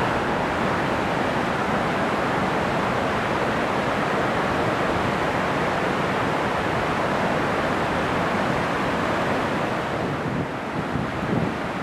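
Steady roar of rushing snowmelt water from a waterfall or cascading creek. About ten seconds in it drops slightly and wind gusts buffet the microphone.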